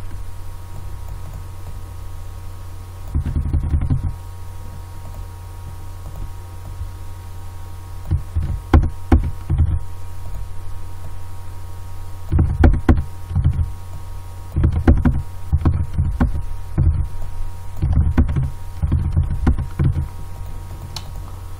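Several bursts of computer keyboard typing and clicks, heard as quick dull thumps, over a steady electrical mains hum.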